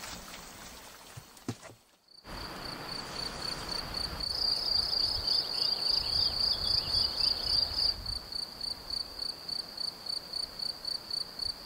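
Cricket chirping in a steady run of high pulses, about three a second, starting about two seconds in.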